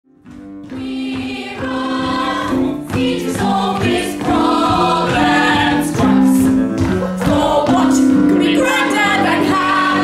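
Music with a choir singing held notes, fading in at the very start.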